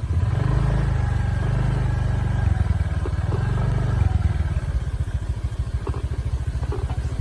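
Vehicle engine running: heavier and revving for the first four seconds or so, then settling into a rapid, even putter.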